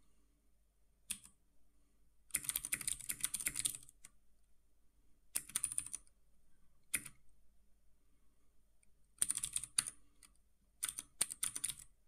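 Typing on a computer keyboard: several bursts of rapid keystrokes separated by pauses of a second or two, the longest burst lasting about a second and a half.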